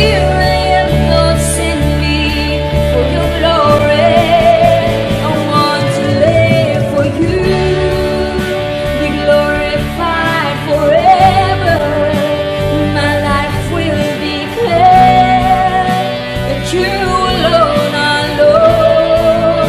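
Worship song: a singer's voice over instrumental accompaniment with a steady beat.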